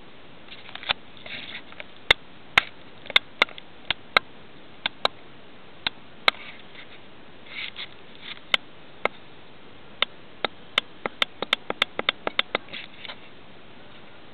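Sharp clicks at irregular intervals, with a quick run of them late on, and a few soft snuffling breaths from a sleeping dog in between.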